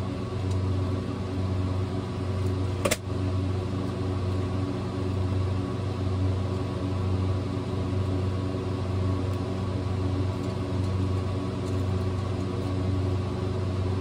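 Steady machinery hum made of several pitched tones, strongest low down and pulsing slightly, with one sharp click about three seconds in.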